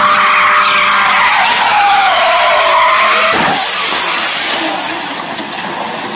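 Car tyres squealing in a long skid, the squeal wavering in pitch. About three and a half seconds in comes a sudden crash, then a hissing scrape that dies away.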